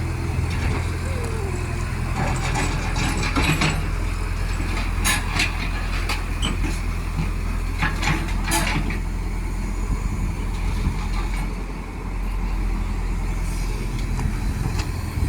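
Heavy diesel machine engine running steadily, with several short, sharp clanks or hisses over it, a few seconds apart.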